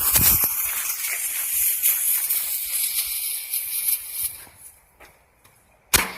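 Lit consumer firework artillery shell hissing and spraying for about four and a half seconds as its fuse and charge burn, then fading out; a single sharp bang near the end.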